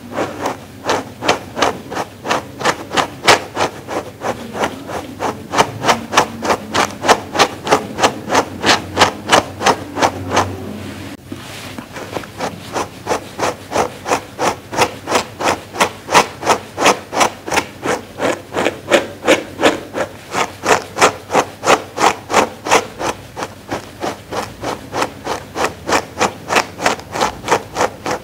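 Dog grooming brush stroked rapidly over a fleece pad, a rhythmic rubbing at about three strokes a second, with a brief pause about ten seconds in.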